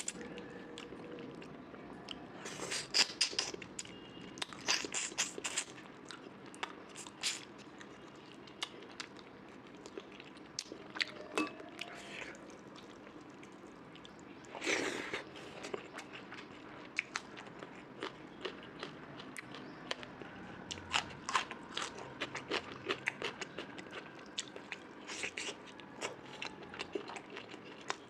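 Close-miked eating: chewing with repeated crisp, crunchy bites in scattered clusters, one of the louder crunches about halfway through.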